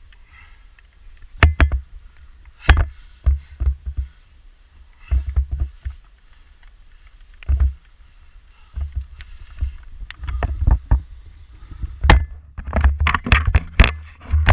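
Irregular heavy thumps and knocks on the camera microphone, with sharp clicks, in scattered clusters that come thicker near the end.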